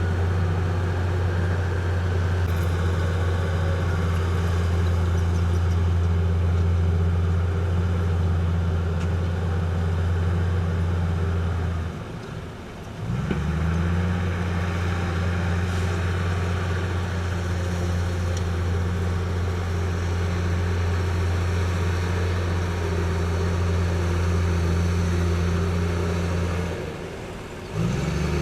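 Heavy diesel engine of earthmoving machinery running steadily with a deep, even hum. Twice the engine sound drops away for about a second, then comes back rising in pitch.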